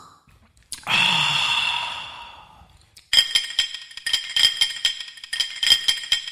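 A long breathy sigh that fades away over about two seconds. About three seconds in, a jingling, rattling percussion beat starts, the opening of a song.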